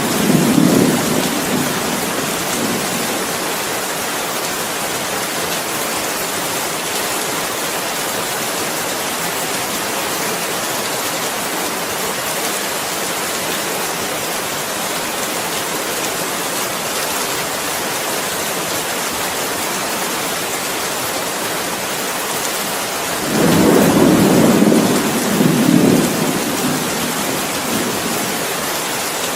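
Steady heavy rain, with a low rumble of thunder at the start and another about 23 seconds in that swells for a few seconds before fading.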